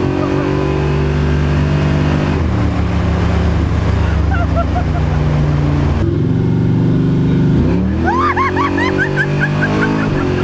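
700-horsepower drag car engine heard from inside the cabin, running steadily under way. Its pitch drops about two seconds in and again about six seconds in, then climbs around eight seconds in. A woman laughs loudly over it near the end.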